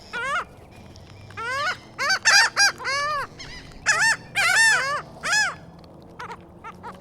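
Seagulls calling: a quick series of short squawks that rise and fall in pitch, thickest and loudest through the middle, with a few faint short notes near the end.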